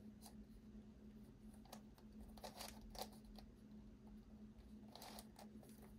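Faint, scattered clicks of the Verypuzzle Speed Tuttminx's plastic layers being turned by hand, over a faint steady hum.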